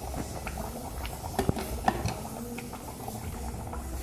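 Wood fire crackling in the firebox of a wood-burning stove, with scattered pops and snaps over a low steady rumble.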